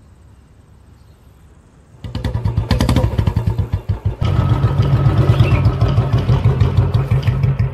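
Royal Enfield motorcycle's single-cylinder engine starting about two seconds in and running with a fast, even thump, louder from about four seconds in as the bike pulls away.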